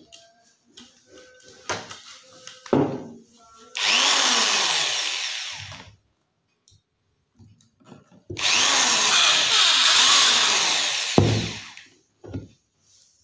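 Corded electric hand drill boring into a broken badminton racket frame, in two runs of about two and three and a half seconds; each run starts abruptly and tails off as it stops. Short handling knocks come before and after.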